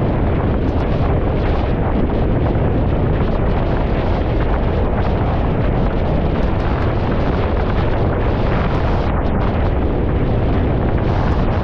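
Strong wind buffeting the camera microphone in a steady, loud rumble, mixed with the rush of a windsurf board planing over choppy water.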